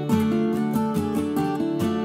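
Background music: a plucked acoustic guitar playing a steady run of notes.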